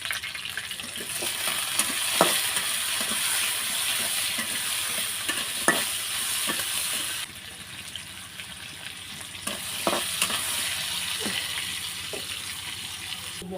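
Potato pieces sizzling in hot oil in a kadai as they are stirred, with a few knocks of the spatula against the pan. The sizzle drops suddenly about halfway through, then picks up again.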